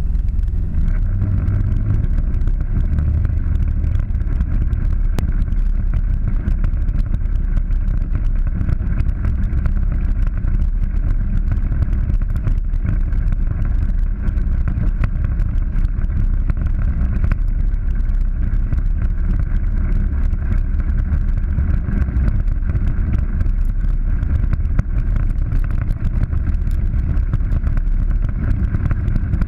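Polaris 900 side-by-side driving steadily along a bumpy dirt road: a constant engine drone mixed with wind noise on the hood-mounted microphone, and many small ticks and knocks throughout.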